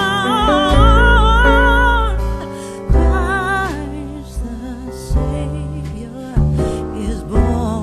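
Music: a song with a singing voice whose held notes waver in pitch, over a steady bass.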